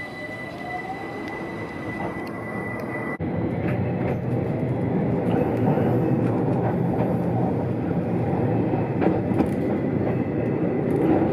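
Keihan 800 series electric train. On the platform there is a steady high whine and a faint rising motor tone. After a sudden cut, the train is heard from inside the driver's cab as it pulls away, a growing rumble with scattered clicks from the wheels running over points.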